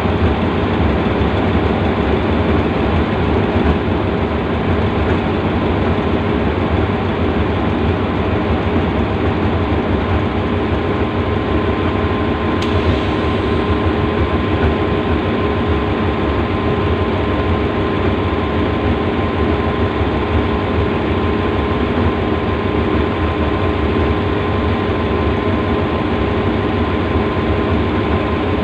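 Diesel engine of a standing passenger train idling steadily: a constant low hum with a thin, steady higher whine over it.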